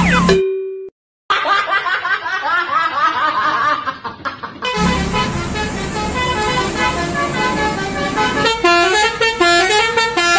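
Basuri telolet bus horn playing its multi-note musical melody, the notes stepping up and down, with a sudden cut to silence about a second in.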